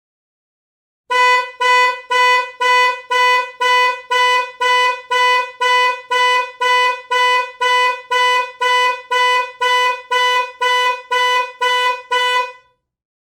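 Digital alarm clock sounding: a buzzy electronic beep repeating evenly about twice a second. It starts about a second in and stops shortly before the end.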